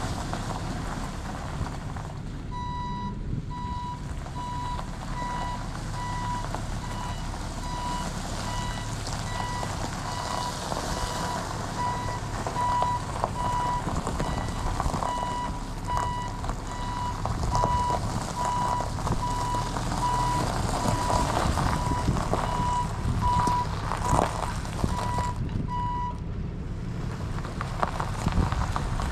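Tow truck's reversing alarm beeping at an even pace, about three beeps every two seconds, over the steady low running of the truck's engine as it backs up with a long load. The beeping stops about 26 seconds in and starts again near the end.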